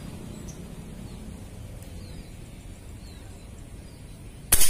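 A PCP air rifle fires a fishing dart once, a single sharp, loud shot near the end, over a faint steady outdoor background.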